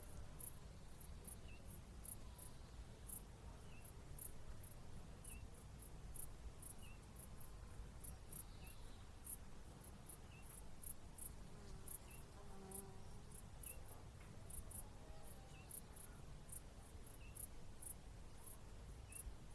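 Hedgerow insects chirping in summertime daylight. Short, high-pitched chirps repeat irregularly, about two a second, with a fainter, lower chirp about every second and a half, over a quiet low rumble.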